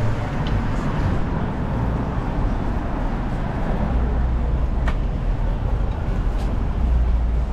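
City street ambience: steady low rumble of downtown traffic, with a faint click about five seconds in.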